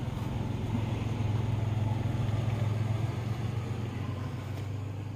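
Vehicle engine idling, a steady low hum that eases off a little near the end.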